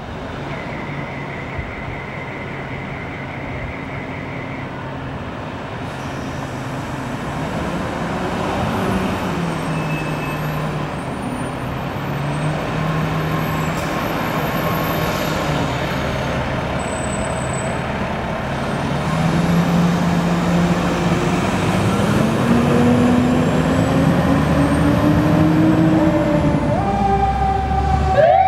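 Fire engine's engine running and pulling through gear changes, getting louder, then revving higher as it accelerates. A siren starts to wail right at the end.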